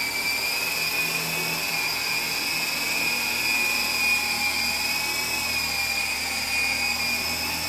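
MJX T-10 toy RC helicopter's electric motors and rotors whining steadily at a high pitch as it lifts off and flies, the pitch wavering slightly.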